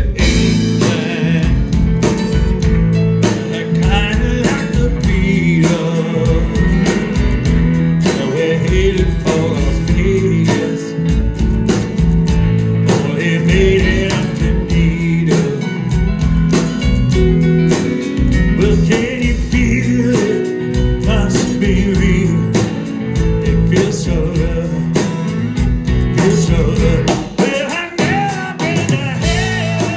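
Live rock band playing a country-tinged song with strummed acoustic guitars and electric guitar over a steady beat, with a singer's voice over the band, heard from the audience.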